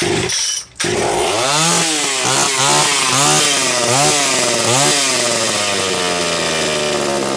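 Homelite Super XL-925 two-stroke chainsaw engine firing on a full-throttle drop start, then revved up and down about six times before its speed sinks steadily as it falls back toward idle. It is a low-compression engine, which the owner says lacks the compression to idle.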